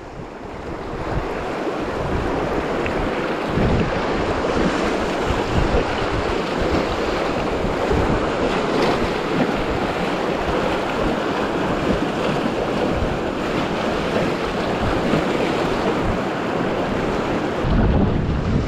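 Rushing, splashing whitewater of a river rapid close around the boat, building over the first second or two. Wind buffets the microphone in irregular low thumps.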